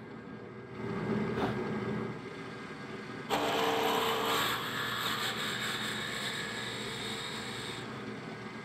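Drill press running, its bit boring into a wooden block. The cut turns suddenly much louder and harsher about three seconds in, then eases near the end.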